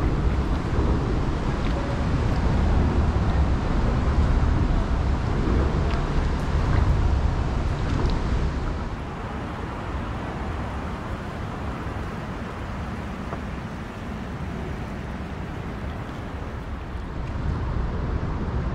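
Wind rumbling on the microphone, with a few light knocks. It softens to a quieter hiss about halfway through and rises again near the end.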